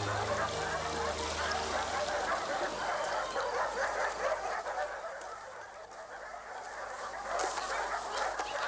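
A dense chorus of many overlapping animal calls. A held music chord fades out under it over the first two seconds or so, and the chorus grows briefly quieter past the middle.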